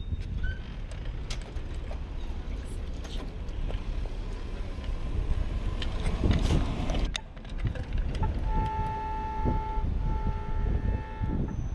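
Steady low rumble of street traffic, with a vehicle horn honking twice near the end, each blast a little over a second long.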